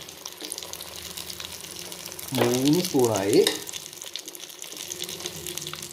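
Hot oil sizzling with fine crackles in a pan of fried ginger, garlic and curry leaves as spoonfuls of wet ground dried-red-chilli and turmeric paste go in.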